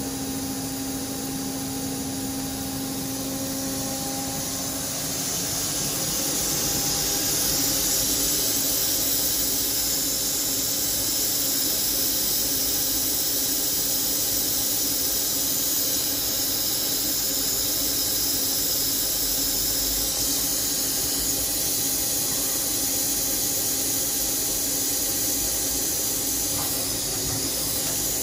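Fanuc Robodrill vertical machining center running during a Z-axis repeatability test: a steady high hiss over a faint hum. It grows a little louder about five seconds in, then holds level.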